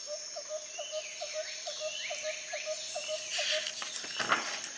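Birds chirping over a high steady insect trill, with one short call repeated about four times a second that stops a little past halfway. Near the end a paper book page rustles as it is turned.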